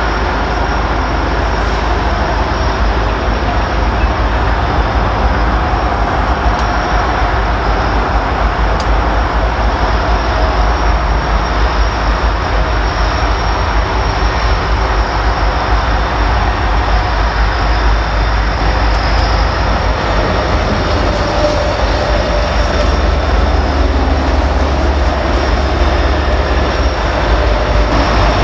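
A train rolling past with a steady, loud running noise of cars on the rails, with a strong low rumble underneath.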